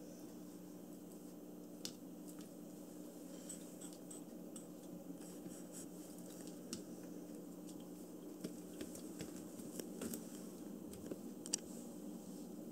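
Faint scattered ticks and soft rustles of a kitten biting and clawing a braided cotton rope toy on a floor mat, with one sharper click near the end, over a steady low hum.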